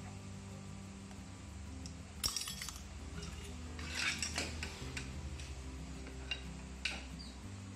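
Metal clinks and clatter of a steel automatic-transmission clutch drum being handled in a clutch-spring compressor tool and set down on the steel fixture: a sharp clatter about two seconds in, a run of clinks around four seconds, and a couple of lighter clicks near the end, over background music.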